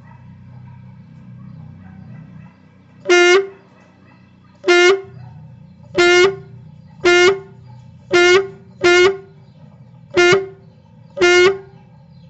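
Homemade toy sound gun firing eight short, loud, buzzy horn-like blasts, all on the same steady pitch and roughly a second apart, starting about three seconds in. A low hum comes before the first blast.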